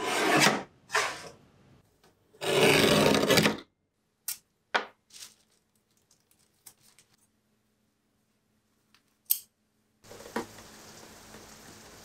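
Rubbing and rasping of a black art portfolio case being handled and opened: three loud strokes in the first few seconds, the last and longest lasting about a second. Then a few soft clicks and taps of paper being folded, and a faint steady hiss near the end.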